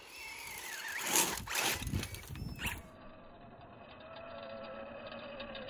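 Electric motor of a radio-controlled formula offroad truck whining, its pitch rising and falling with the throttle, with two loud rushes of noise between one and two seconds in. The sound turns duller about three seconds in, and the whine wavers and climbs near the end.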